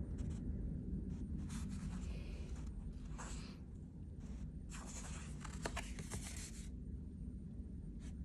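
A folded paper card being handled, rustling several times, over a steady low room hum.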